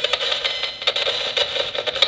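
Static from a Nanocom Coffin Edition spirit box sweeping through radio stations: a steady hiss with a few faint, irregular ticks.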